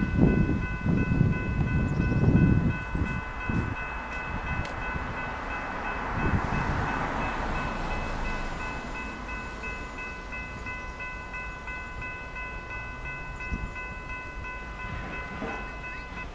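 Approaching train's locomotive horn, held as one steady chord of several tones. Wind buffets the microphone in the first few seconds.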